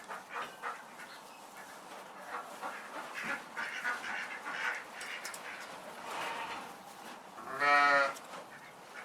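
Farm animals calling: scattered soft calls and rustling, then one loud pitched call lasting about half a second near the end.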